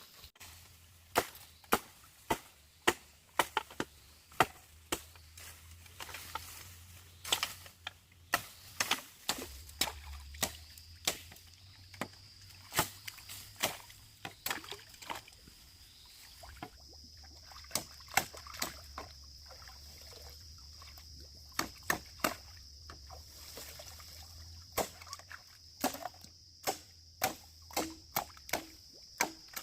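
A tool repeatedly striking bamboo: sharp, irregular knocks about one or two a second, typical of chopping bamboo while building a coop. A steady high-pitched hum joins about halfway through.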